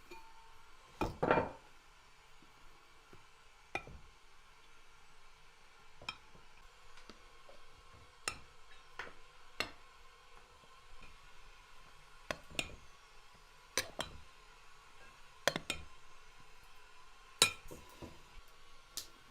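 Cooking utensils and dishes clinking and knocking, about a dozen sharp taps spread unevenly, with a longer clatter about a second in.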